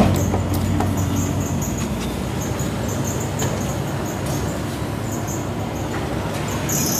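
Gas station fuel pump filling a red plastic gas can: a steady rushing hiss, with a low pump hum through the first second and a half and short high chirps over it.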